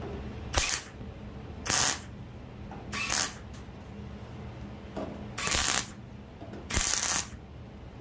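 Five short tack welds from a wire-feed MIG welder on thin sheet steel, each a burst of arc crackle lasting under a second, about a second apart, tacking a backing strip into a window-sill patch.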